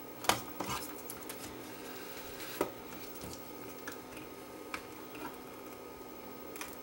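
Scattered light clicks and knocks of small parts and tools being handled while an amplifier is put back together. The sharpest knock comes just after the start, another about two and a half seconds in, with fainter taps between.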